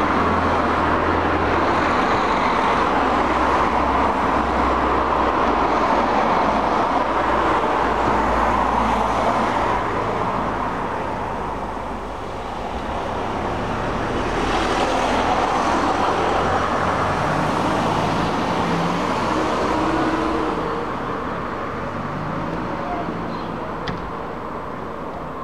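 Road traffic going past steadily, with the hum of engines swelling and fading; it dips briefly about halfway through and eases off near the end.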